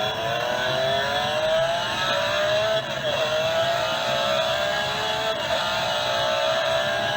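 Alarm sound of a car-themed alarm clock: a recorded V8 engine accelerating, played through the clock's speaker. The engine note rises in pitch, drops about three seconds in and again near five and a half seconds as it shifts up, then climbs again.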